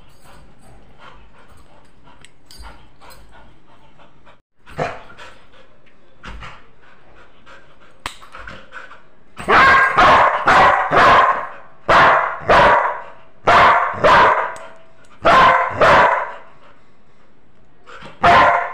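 Yellow Labrador retriever barking: after a quieter first half, loud short barks come in quick runs and pairs from about halfway through to the end.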